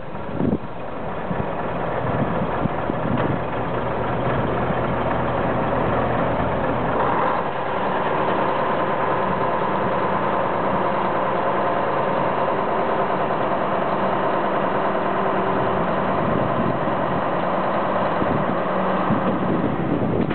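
A 1987 Mack RD686SX dump truck's diesel engine runs while the hydraulic hoist raises the steel dump body. About seven seconds in the sound changes: the deepest rumble drops away and a steady higher whine joins in.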